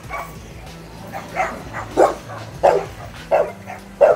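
A dog barking repeatedly, about five barks, roughly one every two-thirds of a second.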